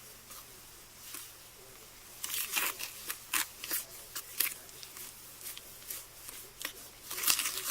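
Gritty scraping and stirring of a wet sand, glue and glitter mixture in a container, in irregular strokes that start about two seconds in and are loudest near the end.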